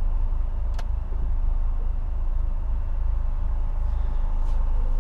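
A steady low mechanical hum that starts abruptly just before and runs on evenly, with a single sharp click about a second in.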